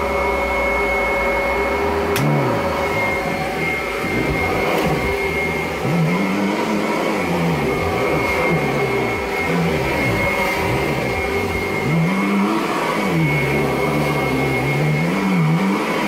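Kirby Avalir upright vacuum running on carpet: a steady high whine over a lower motor note that wavers up and down. The wavering goes with a slipping power-nozzle belt. A single sharp click about two seconds in.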